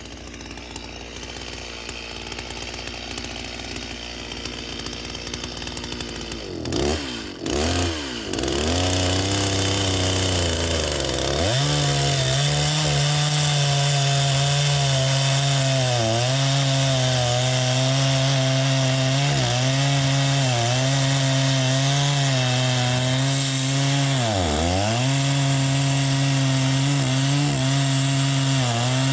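Chainsaw engine, quieter at first, revved up and down several times about six to eleven seconds in, then held at full throttle cutting along the trunk to saw a plank from a standing tree, the pitch dipping briefly a few times as the chain loads up in the wood.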